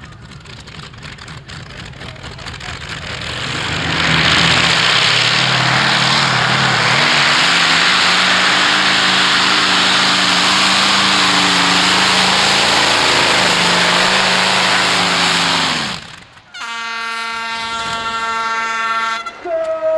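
Modified pulling tractor running at full power: the engine builds over the first few seconds, stays very loud for about twelve seconds, then cuts off abruptly. A steady air horn follows for about three seconds near the end.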